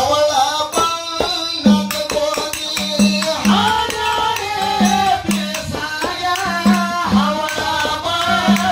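Kannada folk song (dollina pada): a man's voice singing a drawn-out melodic line over a drum beat, with strokes often in pairs, and the clash of small hand cymbals.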